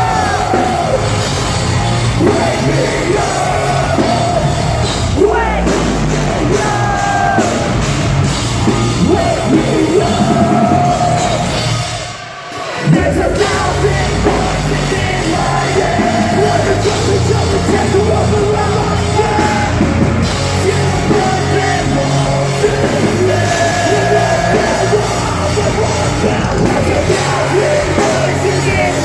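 Metalcore band playing live, with distorted guitars, drums and a vocal line that shifts between singing and yelled screams, heard in a large hall. About twelve seconds in the band drops out for a moment and then crashes back in with a loud hit.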